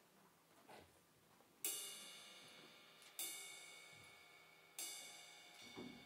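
Three single cymbal strokes about a second and a half apart, each ringing on and fading slowly.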